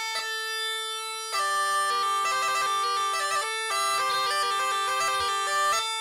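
Karpathian tsabouna, a droneless Greek island bagpipe with a goatskin bag, playing a quick melody that steps rapidly between notes, with one note held for about a second near the start.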